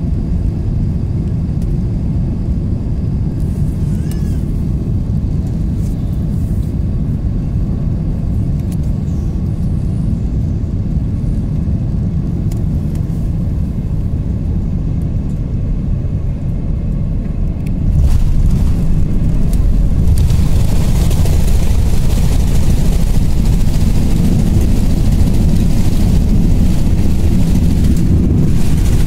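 Boeing 767 cabin noise from a window seat: a steady rumble of engines and airflow on the approach. About 18 seconds in it jumps louder as the wheels touch the runway and the roll-out begins, and a couple of seconds later a broad rushing noise of reverse thrust and braking builds.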